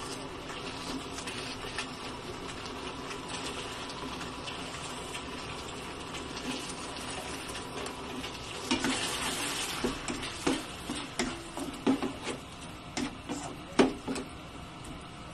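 Tomato-based sauce with chopped onions simmering and sizzling in a nonstick wok. From about nine seconds in it is stirred, and the utensil scrapes and knocks against the pan several times.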